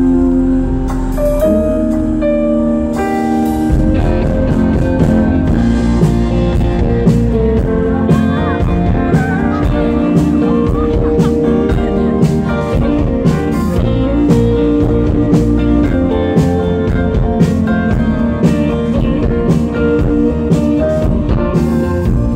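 Live band playing: acoustic-electric guitar, electric bass and drum kit, with the drums coming in on a steady beat about three and a half seconds in.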